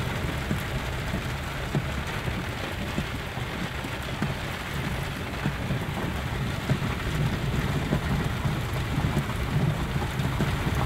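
Heavy rain pouring onto a Toyota 4x4's roof and windshield, heard from inside the cabin as a dense steady hiss over the low rumble of the moving vehicle.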